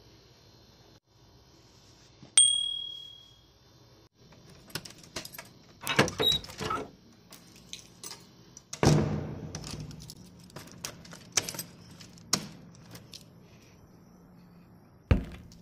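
A sharp metallic ping with a short ringing tail about two seconds in, then keys jangling and a door's lock and handle clicking and knocking as a wooden door is unlocked and opened, with one heavier knock about nine seconds in.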